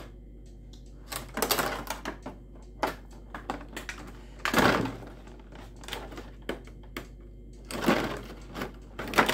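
Clear plastic bag crinkling and crackling as it is handled and cut open with a knife, in several separate bursts, the loudest about halfway through.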